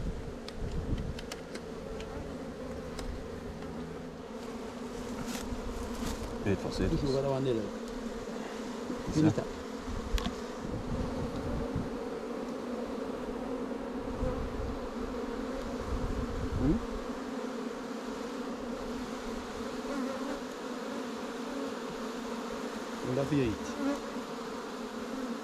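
A swarm of honey bees buzzing steadily as their colony and comb are being handled and moved, with a few brief thumps from handling.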